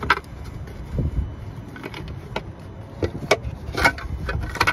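Hands working plastic engine-bay parts and a silicone intercooler hose loose: irregular sharp clicks and knocks, several louder ones in the second half, over a low rumble.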